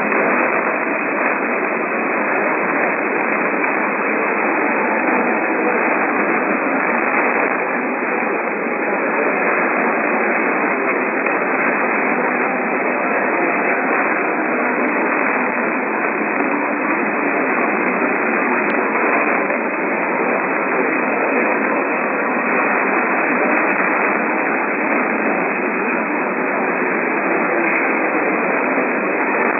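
Radio receiver static: a loud, steady hiss with no programme coming through.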